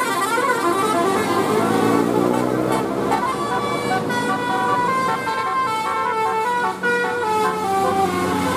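Indonesian bus's 'basuri' telolet musical air horn playing a tune. Warbling, gliding notes give way about four seconds in to a run of stepped, held notes.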